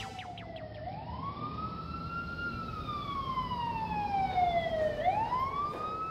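Emergency-vehicle siren wailing. Its pitch rises quickly, falls slowly for a couple of seconds, then sweeps up again near the end, over a steady low rumble.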